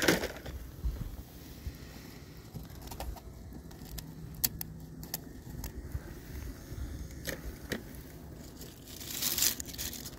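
Handling noises from clearing a garden railroad platform: scattered small clicks as model accessories such as plastic barrels are picked up, and light rustling of dry leaves, with a louder rustle near the end.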